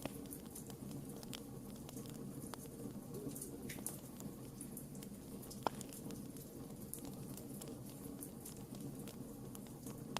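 Wood fire burning in a fireplace: scattered crackles and small pops from the burning logs over a steady low rumble of the flames, with one sharper, louder pop just past the middle.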